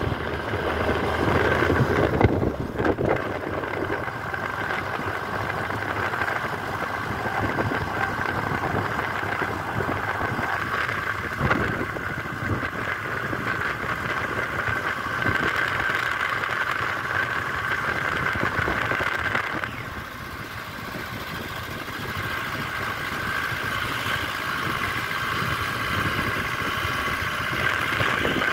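Car engine and road noise heard from inside a moving car's cabin, a steady drone that drops in level about twenty seconds in and then slowly builds again.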